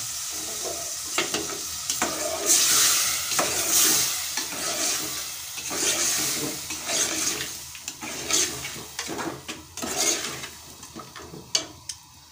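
Pieces of bone-in meat with turmeric, ginger-garlic paste and a splash of water sizzling in hot oil in a metal pot while a steel spoon stirs them and scrapes against the pot. The sizzle fades toward the end.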